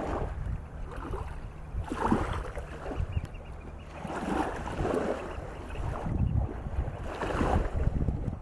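Small waves lapping and washing over the sand at the water's edge in a series of soft swishes, with wind rumbling on the microphone.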